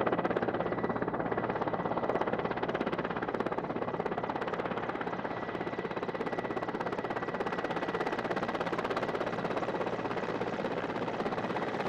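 Helicopter rotor blades chopping in a rapid, steady beat.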